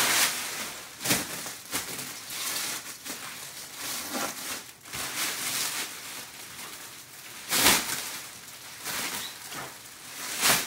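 Thin plastic sheeting rustling and crinkling as it is pulled and bunched off a rolled mattress, in irregular bursts. The louder crackles come at the start, about a second in, and around three quarters of the way through.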